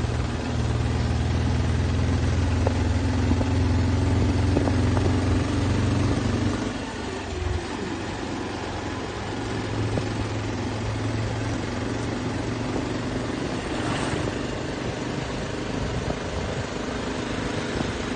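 Four-wheeled scooter's engine running steadily as it rides along, with road and wind noise. Its strong low hum drops and quietens about seven seconds in.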